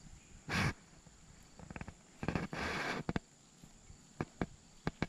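Handling noise as hands work fishing line and a lure at the tip of a spinning rod, close to the camera's microphone. There is a brief rustle under a second in, a longer rubbing rustle around two to three seconds, and a few sharp clicks near the end.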